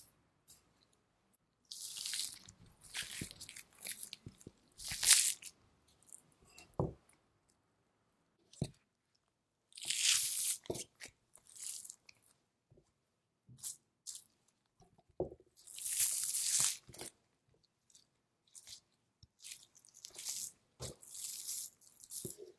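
A knife cutting through the fat and silverskin of a raw block of Japanese Black Wagyu kame-no-ko, with the trimmed fat being peeled away from the meat. The sound comes in separate bursts a few seconds apart, each a second or two long, with a few short ticks in between.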